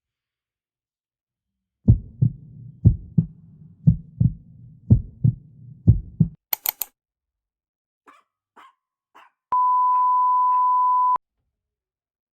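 Heartbeat sound effect: five double thumps, lub-dub, about one a second. Then a few sharp clicks and faint ticks, and a steady high beep lasting about a second and a half near the end.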